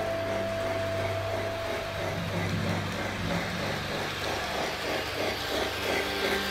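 Electric model train running on its track, a rattling rumble that grows louder as the steam-outline locomotive draws close near the end. Soft music fades out during the first two seconds.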